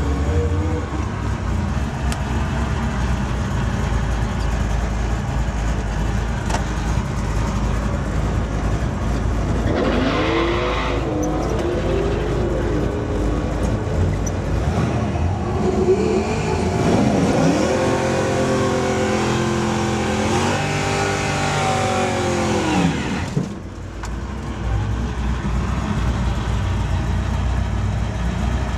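Classic Chevrolet Camaro drag cars' engines running with a steady low rumble. Through the middle stretch they are revved repeatedly, the pitch sweeping up and falling back several times. The sound dips briefly before settling back to a steady run.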